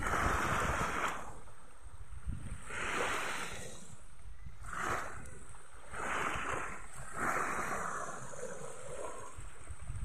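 Small sea waves lapping onto a sandy beach: a soft hiss of surf rising and falling with each wash, every second or two.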